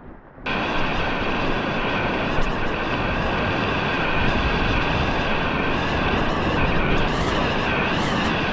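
Steady roar of rushing whitewater rapids, cutting in abruptly about half a second in and holding at an even, loud level.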